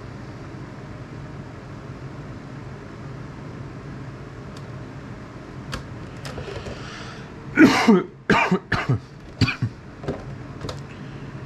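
A man coughs and clears his throat in a quick series of short, loud bursts about two-thirds of the way through, over a steady low hum.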